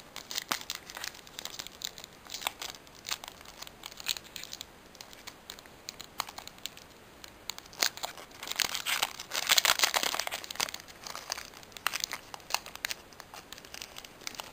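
Foil Pokémon booster pack being torn open and crinkled by hand: a run of crackling, crinkling foil, louder and denser about eight to eleven seconds in.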